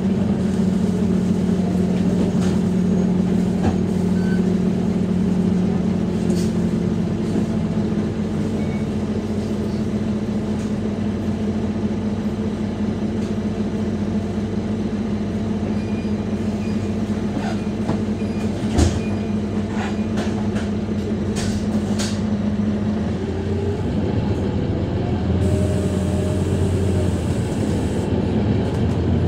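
Scania DC9-16-230 five-cylinder diesel engine of a Scania K230UB bus, heard from inside the cabin, running at a steady speed. There are a few clicks and one sharp knock about two-thirds of the way through. Near the end the engine note changes, with a rising tone.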